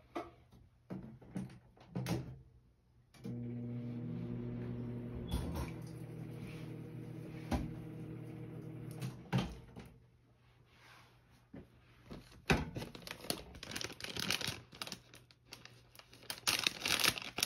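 An electric kitchen appliance hums steadily for about six seconds, starting a few seconds in and stopping with a click. Near the end come quick clicks and the crinkling of a packet.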